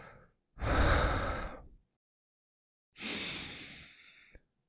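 A man breathing nervously into the microphone: two long, breathy sighs, the first loud and the second softer and trailing off, as he steels himself.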